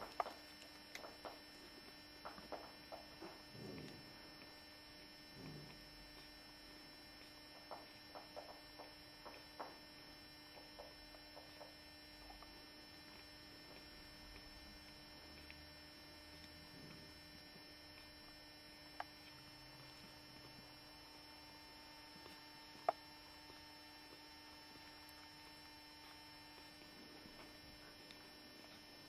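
Near silence with a steady electrical hum, a run of faint soft clicks through the first ten seconds, and two sharp ticks in the second half.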